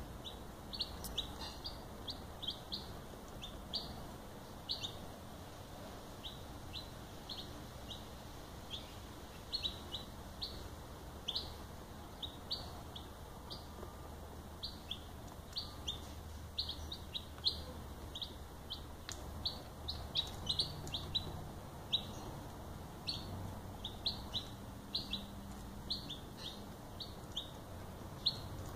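A few Silver Laced Wyandotte chicks, a few days old, peeping: many short, high peeps at an irregular pace.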